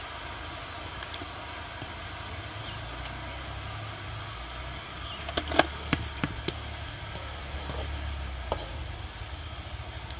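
A few sharp metallic clinks about halfway through as a scoop of soaked sticky rice is knocked against a large metal cooking pot and tipped in. Under them runs a steady low rumble.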